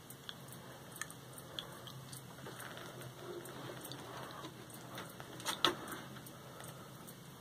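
Soft water sloshing and scattered small clicks as a black-throated monitor lizard shifts in a shallow tub of water and noses at a raw chicken leg, with a sharper burst of clicks and splashing about five and a half seconds in, over a steady low hum.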